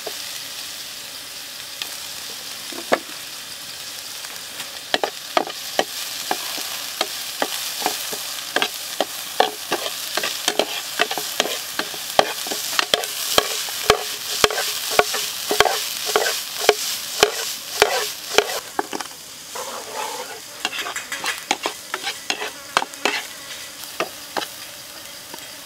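Chopped garlic, onion and sliced long chili sizzling in hot oil in a nonstick frying pan, with a metal ladle stirring and scraping, knocking against the pan. The stirring knocks start about five seconds in, come quickest through the middle and thin out near the end.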